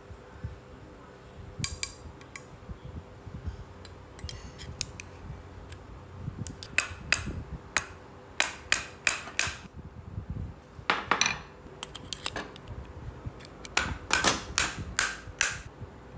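Irregular metallic clicks and clinks of small metal parts being handled, in scattered clusters that are loudest about 7 to 10 seconds in and again near the end, over a faint steady hum.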